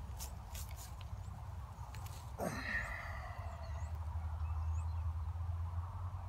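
Footsteps crunching in dry grass and fallen leaves near the start, as a person walks and then sits down, over a steady low rumble. About two and a half seconds in comes a short cry that drops quickly in pitch, followed by a few faint high chirps.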